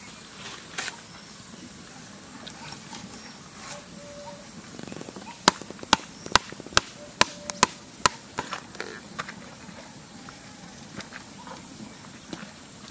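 A knife chopping into a large vetki (barramundi): seven sharp strikes in quick succession, about two and a half a second, starting about halfway through, over a steady high-pitched hiss.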